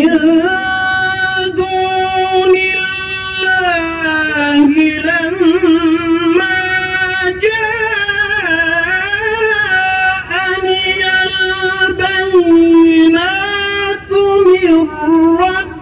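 A man's voice in melodic Quran recitation (tilawah): long, drawn-out melismatic phrases with wavering ornaments, held at a high pitch, with a short break for breath about fourteen seconds in before the line continues.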